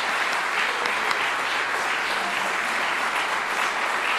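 Audience applauding steadily, the sound of many hands clapping together.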